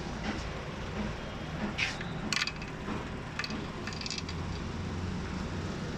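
Light metallic clicks and clinks, four or five between about two and four seconds in, as small steel parts such as a plunger washer are fitted by hand into a Zexel six-cylinder inline diesel injection pump. A steady low rumble runs underneath.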